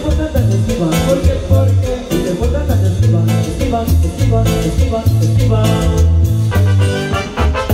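Live band playing Latin dance music: congas and drum kit keeping a steady beat over a bouncing bass line.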